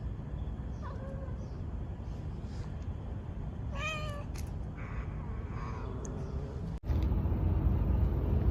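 Domestic cat meowing: a short meow about a second in and a clearer one about four seconds in. A steady low rumble runs underneath and gets louder after a sudden cut near the end.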